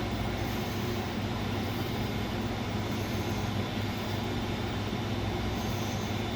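Steady low mechanical hum of room background noise, even and unchanging, with no distinct clicks or knocks from the work.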